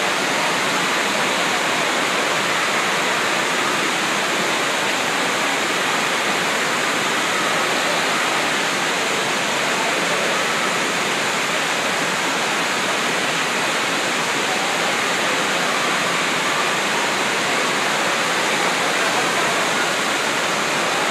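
Steady, unbroken rush of water pumped in a thick sheet up the slope of a wave rider, a standing-wave surf ride.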